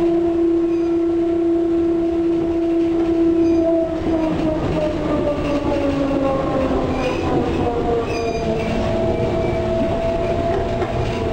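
Škoda 15Tr articulated trolleybus heard from inside while moving: the electric traction drive whines over a steady rumble of road and body noise. The whine holds one pitch for about four seconds, then falls, and another tone shifts in pitch near the end.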